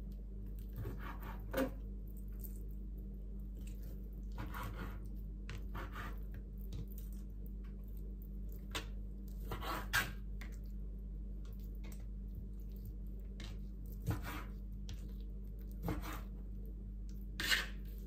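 Kitchen knife cutting raw chicken breast into chunks on a plastic cutting board: short soft cuts and taps of the blade on the board at an uneven pace, every second or two. A steady low hum runs underneath.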